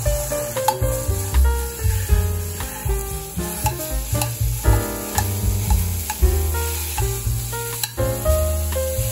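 Ground beef sizzling in a hot frying pan as chopsticks break it apart, with sharp taps of the chopsticks against the pan now and then. Background music with bass notes plays over it throughout.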